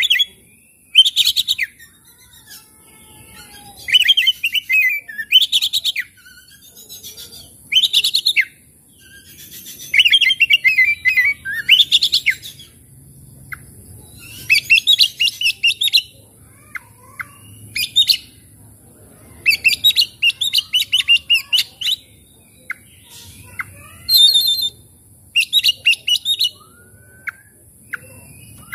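Oriental magpie-robin singing loudly in repeated bursts: phrases of rapid, chattering, high notes a second or two long, separated by short pauses.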